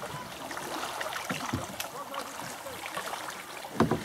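Kayak paddles dipping and pulling through river water, with steady splashing and lapping and small knocks; a couple of louder thumps near the end.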